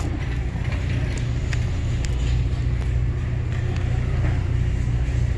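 Steady low rumble of store background noise, with a few faint clicks about one to two seconds in.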